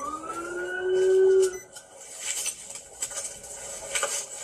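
Police car siren on body-camera audio, switching from a fast yelp to one rising, then held wail that cuts off about a second and a half in. After it come scattered clicks and noise.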